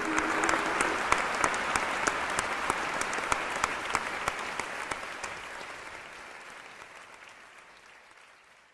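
An audience clapping in a hall, dense applause that thins and fades away over the last few seconds.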